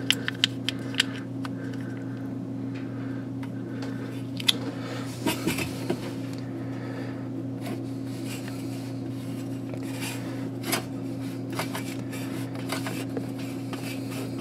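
Scattered small clicks and clinks of hands and tools working at a dishwasher's belt and pulleys while grease is applied, over a steady low hum. There are a few quick clicks at the start, a sharp click about four and a half seconds in, and a short cluster a second later.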